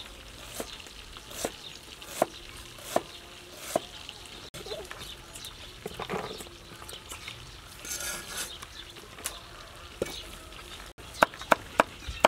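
Cleaver blade knocking on a wooden chopping board as onion is cut, one chop about every three-quarters of a second. Around the middle the cut pieces are scraped off the board onto a metal tray. Near the end comes a quicker run of louder chops through green pepper.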